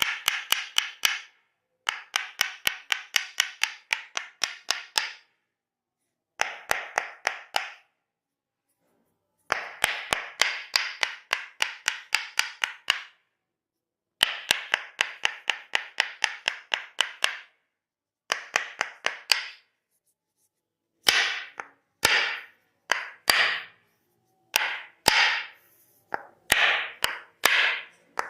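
Percussive massage strikes tapped in quick runs of about five a second, each run lasting a few seconds with short pauses between. Later the strikes come singly, about one or two a second, each with a short ringing tail.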